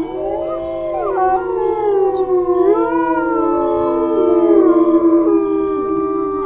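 Several dogs howling together: long overlapping howls that slide slowly up and down in pitch, some held on a steady note.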